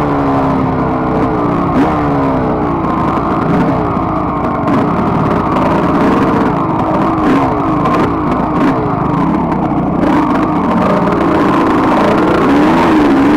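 1992 Suzuki RMX250 two-stroke dirt bike engine running on a rough grassy trail, its revs rising and falling again and again with the throttle. A few short knocks come from bumps along the way.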